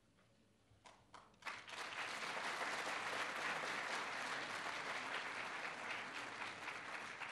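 Audience applauding: a few scattered claps about a second in, then steady full applause from about a second and a half on.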